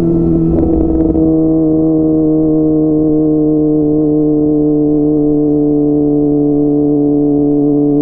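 Kawasaki ZX-25R's inline-four engine through a DX Generation Pro Race full-system aftermarket exhaust, running at steady revs while riding. The note dips slightly and is briefly rougher about a second in, then holds an even pitch.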